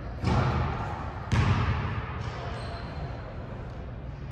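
Basketball bouncing on a gym's hardwood court: two thuds about a second apart, each trailing off in echo.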